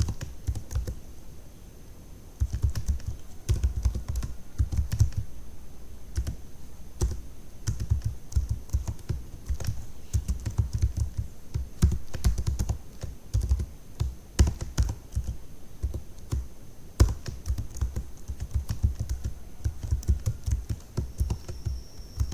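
Typing on a computer keyboard: irregular runs of sharp keystrokes, each with a dull thump, broken by a short pause about a second in.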